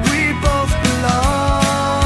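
Song from the video's soundtrack: a singer's voice over a band with a regular drum beat, holding a long note from about a second in.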